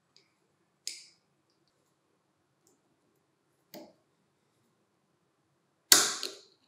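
Steel snap-ring pliers working the circlip on the bevel-gear spindle of a Hitachi G18DSL angle grinder. A few sharp metallic clicks about a second in and near four seconds, then the loudest, a quick double clack, near the end.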